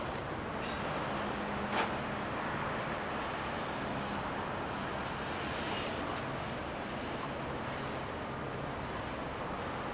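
Steady din of a large city construction site: a low engine hum over a traffic-like background noise, with one sharp knock about two seconds in.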